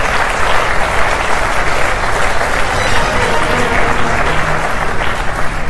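Studio audience applauding a correct answer on a quiz show.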